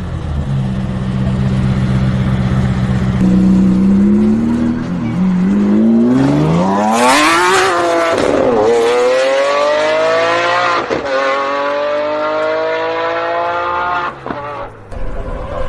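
Pagani supercar's V12 engine and exhaust, running steadily at low revs, then revving up and pulling hard at high revs. The pitch drops twice as it changes up a gear, then dips briefly near the end before climbing again.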